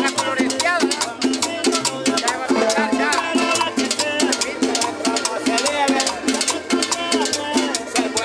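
Salsa-style Latin dance music from a live combo band, with percussion keeping a steady, even beat.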